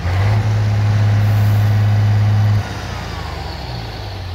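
MAN 19.422 tractor unit's six-cylinder diesel engine idling, a steady low drone heard up close, which drops in level about two and a half seconds in.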